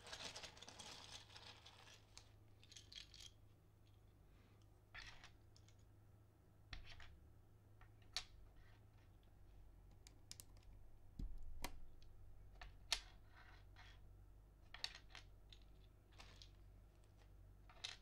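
Faint, scattered light clicks of plastic keycaps being handled, set down on a desk and pressed onto a mechanical numpad's switches, with a soft hiss for the first two seconds.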